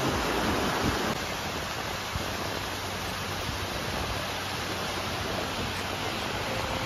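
Fast-flowing mountain stream rushing over rocks: a steady, even rush of water.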